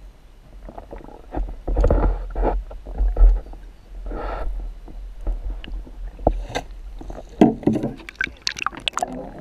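Muffled thumps, rumbling and water rushing heard through a GoPro's waterproof housing held under water. Near the end, sharp clicks and knocks come as the camera rises to the surface.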